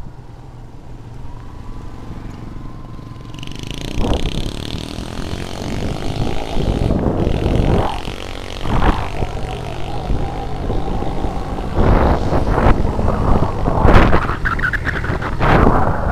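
Yamaha Byson motorcycle engine running steadily while riding. Wind noise on the microphone builds from a few seconds in, and repeated knocks and jolts in the second half come from the bike going over a broken, potholed road.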